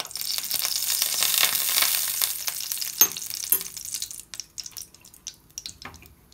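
Hot oil sizzling in a preheated nonstick frying pan. The sizzle is loud at first and dies away over about four seconds, with two sharp ticks about halfway through and a few small crackles at the end.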